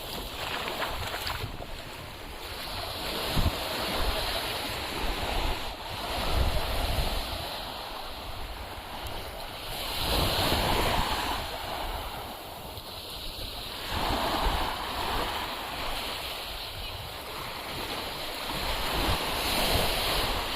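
Sea waves breaking and washing up on a beach, the surf swelling louder every few seconds, with wind buffeting the microphone.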